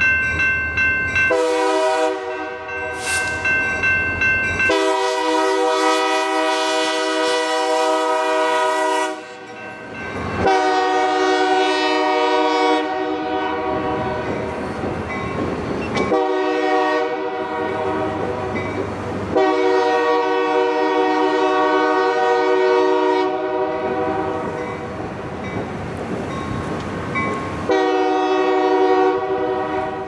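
Diesel locomotive air horns sounding a series of long, loud chord blasts, each several seconds long, with short breaks between them.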